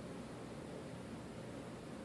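Faint steady rush of air from an antique Dayton 600 ceiling fan coasting down after being switched off; its freshly oiled bearings let it spin down for a long time.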